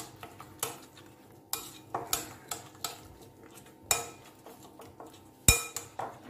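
Fingers mixing a thick spice-paste marinade in a glass bowl, tapping and clinking against the glass at irregular moments, with one louder knock of the bowl about five and a half seconds in.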